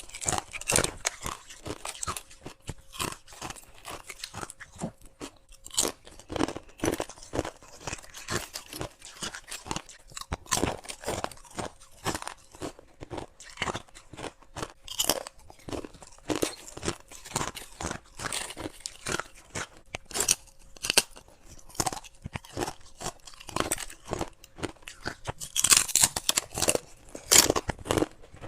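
A person biting and chewing clear ice from a humidifier-style ice tray: a steady run of sharp, crisp crunches, with a cluster of louder crunches near the end.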